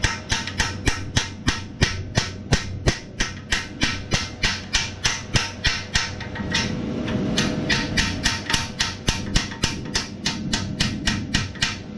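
A hand tool working on the oil pan area gives rapid, even metallic clicks, about three a second. They break off for about a second halfway through, then start again.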